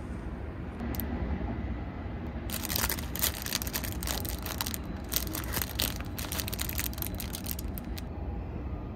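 Plastic snack packaging crinkling and rustling in a dense run of crackles for about five seconds, starting a couple of seconds in, over a steady low hum.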